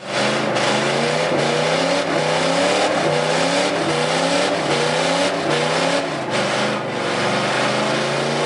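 Pickup truck engine revving hard through a burnout, the revs rising and dipping over and over, over the hiss of the rear tyres spinning on the pavement.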